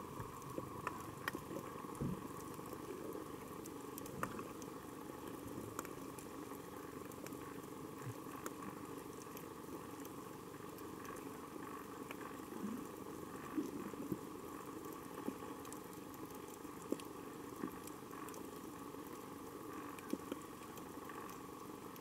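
Underwater coral reef soundscape: a steady crackle of snapping shrimp, with sharper clicks scattered irregularly throughout, over a constant hum.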